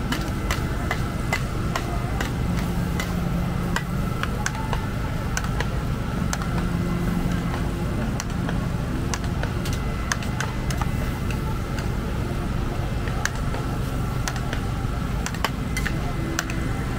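Night-market ambience: a steady low rumble with a faint constant whine, scattered sharp clicks and clatter throughout, and faint voices now and then.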